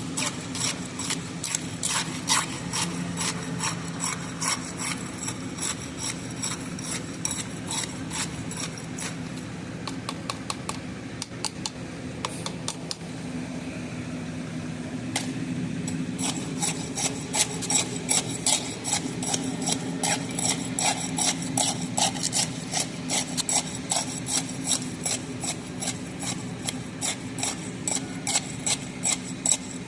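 Hand tools scraping and striking during concrete placing and leveling: rapid sharp metallic taps and scrapes about two to three a second, thinning out for a few seconds near the middle and picking up again, over a steady low engine drone.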